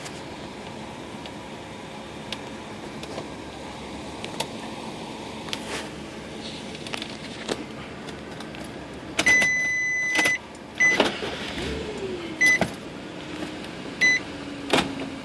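Electronic beeper: small clicks and handling, then one long high beep lasting about a second, followed by short beeps of the same pitch repeating about every second and a half.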